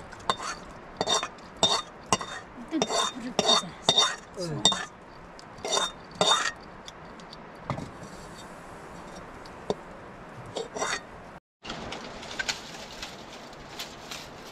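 Metal cookware (a wok, plates and utensils) clinking and scraping, with a short metallic ring after many of the knocks. The clinks come thick and fast for the first several seconds, then grow sparse.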